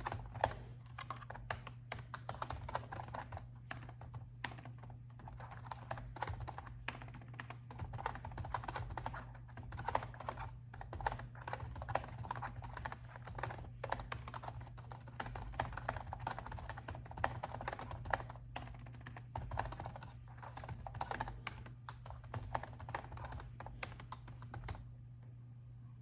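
Steady, fast typing on a laptop keyboard, with short pauses between bursts of keystrokes, stopping shortly before the end. A steady low hum runs underneath.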